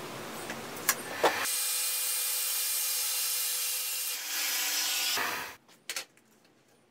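Makita circular saw crosscutting a 19 mm pine board. It starts about a second and a half in, runs steadily for about four seconds and stops suddenly, with a couple of clicks before and after.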